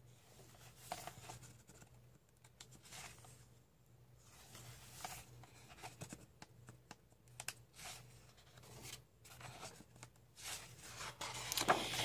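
Pages of a paperback coloring book turned by hand one after another: a faint paper swish and rustle every second or two.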